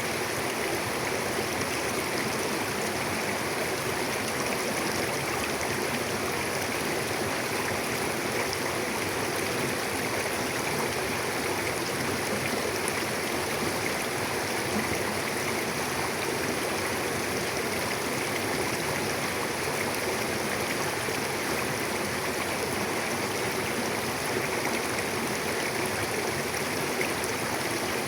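Mountain river flowing over rocks: a steady rushing and gurgling of water that stays even throughout.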